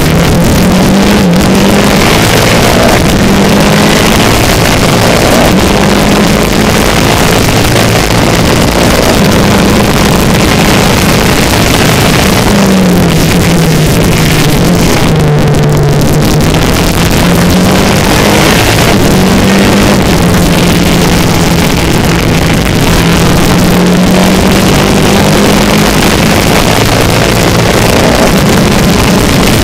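Formula Renault 2.0 race car's 2-litre four-cylinder engine at full throttle, heard onboard, its pitch climbing through each gear and dropping at each upshift. About midway it falls away for a corner and then climbs again. A steady hiss of wind noise on the microphone runs under it.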